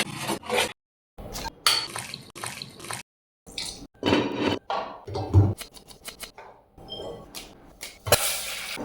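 Kitchen prep sounds in short spliced clips: utensils and dishes clinking and clattering, with some water sounds, broken twice by a moment of dead silence. Near the end a steady hiss comes in.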